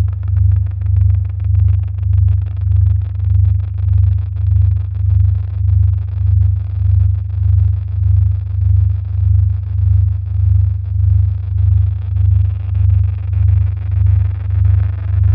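Electronic soundtrack: a loud, deep bass drone that swells and fades about twice a second, with faint crackling and ticking above it.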